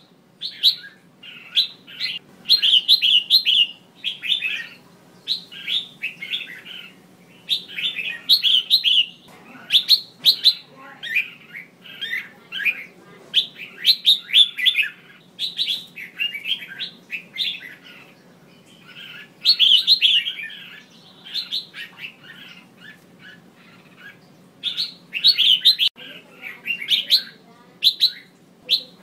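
Female red-whiskered bulbul calling: quick clusters of short, high chirps repeated every second or so, with a few brief pauses. This is the hen's call that keepers play to spur male bulbuls into singing.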